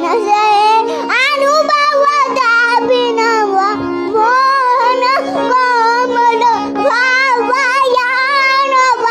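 A small child singing a raga melody in long, gliding phrases, accompanied by a harmonium's steady reed tones.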